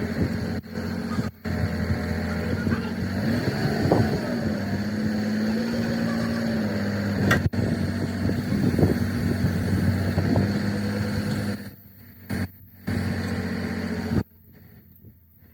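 A motor or engine running steadily with a hum whose pitch dips and rises a few seconds in, and a single sharp click about halfway through. The sound drops away in gaps near the end.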